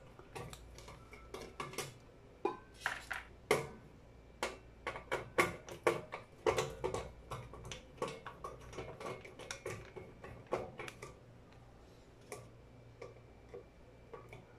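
Irregular light clicks and taps of fingers and a small tool working at a display circuit board mounted on the inverter's sheet-metal cover. They come thick and fast for most of the stretch and thin out to a few isolated ticks near the end.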